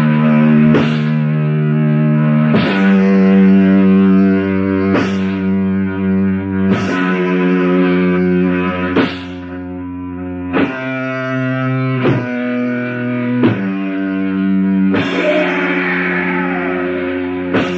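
Slow death/doom metal from a lo-fi demo tape: heavily distorted electric guitar holding long sustained chords, moving to a new chord about every two seconds.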